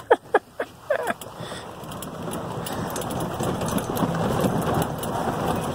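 A few short squeals in the first second, then a steady rushing noise that builds over the next couple of seconds: a small open utility vehicle moving along a dirt track.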